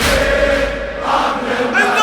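Latmiyya mourning chant: a group of male voices chanting together, with a deep beat at the start.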